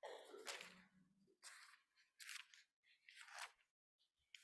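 Pages of a Bible being turned at a pulpit: about four short papery rustles.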